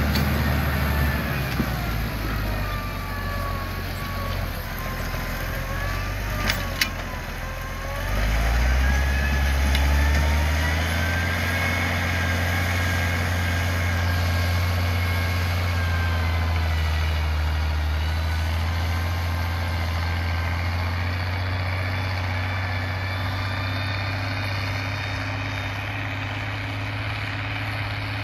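IMT 5136 Turbo tractor's diesel engine running under load as it pulls a disc harrow, a steady low drone with thin whining tones above it. About eight seconds in the engine note rises and grows louder as the tractor takes on more load. The sound fades slowly as the tractor moves away. Two sharp clicks come at about six and a half seconds.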